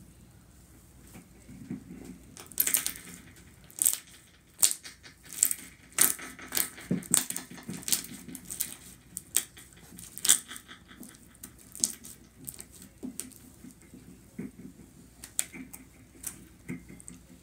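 Hands squeezing and kneading a large batch of thick slime: irregular wet pops and crackles, thick from a few seconds in and sparser near the end.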